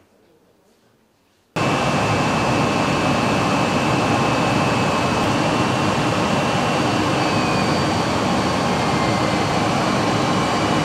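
Steady aircraft engine noise in flight, cutting in abruptly about a second and a half in after near silence, with a faint steady high whine over it.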